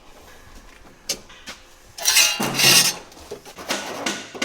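A light knock, then about a second of loud, harsh scraping in two goes, like a steel repair panel sliding against metal as it is offered up for a test fit.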